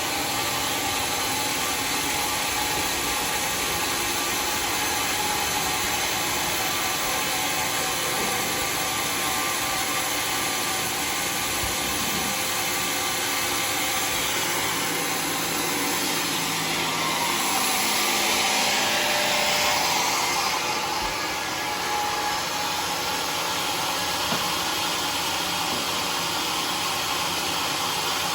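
Homemade sawmill running steadily, its motor and blade giving a constant mechanical noise. The noise grows louder and brighter for a few seconds a little past the middle.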